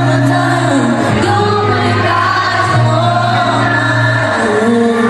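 Live concert music with singing: layered vocal harmonies on long held notes over a steady low held note, the chords changing every second or two.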